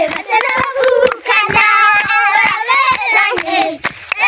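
A group of young children singing together and clapping their hands.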